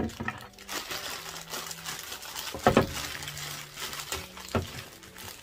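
Clear plastic packing bag crinkling and rustling as a figure part is worked out of it, with a few sharper crackles, the loudest a little past the middle.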